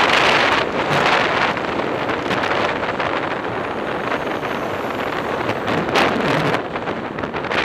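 Wind rushing over a helmet-mounted action camera's microphone while cycling along a road, with cars passing close alongside. The rush swells loudest about the first second and again around six seconds in.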